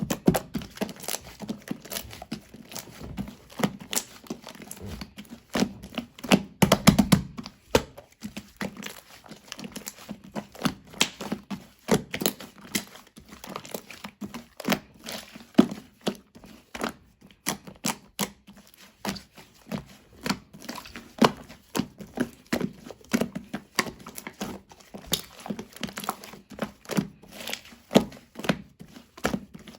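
Slime being squished, stretched and poked by hand, giving many short, irregular clicks and crackles.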